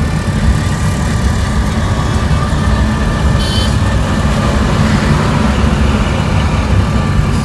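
Steady low rumble of a car's engine and tyres on the road, heard from inside the cabin while driving in traffic, with a short high-pitched sound about three and a half seconds in.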